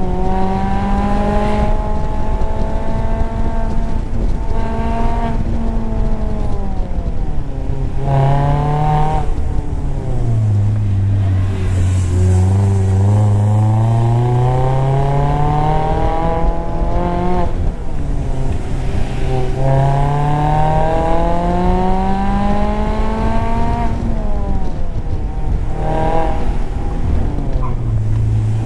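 Mazda MX-5 Miata's four-cylinder engine pulling up a winding road, its note climbing slowly and dropping back several times as the throttle comes on and off. Steady wind and road noise come through the open top.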